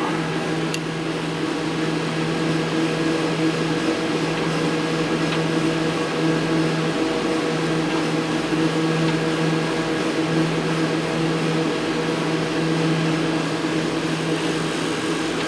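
Electrovert Electra wave solder machine running in demonstration mode, its conveyor chain and heaters on: a steady mechanical hum with fan noise and a low drone that wavers slightly.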